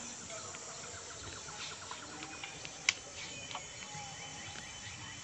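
Outdoor insect and bird sounds: a quick run of evenly spaced ticks in the first second or two, then a few thin high calls, with a single sharp click about three seconds in.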